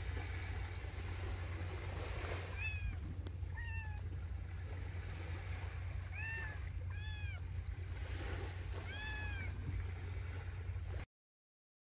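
A kitten meowing about five times, short high arched mews spread over the stretch, over a steady low rumble.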